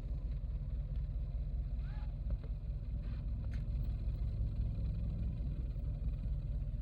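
Steady low hum of a vehicle engine, heard from inside the vehicle.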